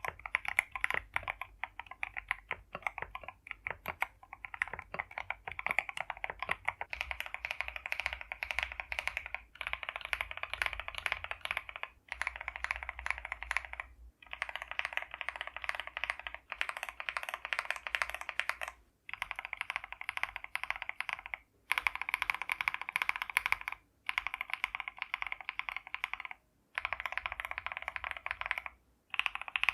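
Fast typing on a mechanical keyboard fitted with lubed Akko switches: a dense stream of key clacks, broken by short pauses every two or three seconds.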